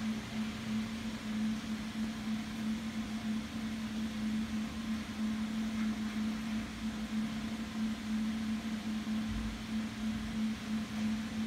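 A steady low machine hum over a faint hiss, with a brief low rumble about nine seconds in.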